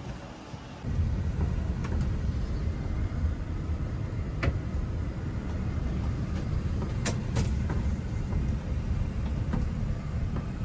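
Steady low engine and road rumble heard inside an airport shuttle van's cabin, rising about a second in, with a few sharp clicks and rattles.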